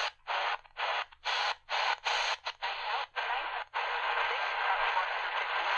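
Tecsun PL-380 portable radio being tuned across the AM medium-wave band: the sound comes in quick choppy bursts of static, muted between each tuning step. About four seconds in it settles on one frequency, giving steady static hiss with a faint station underneath.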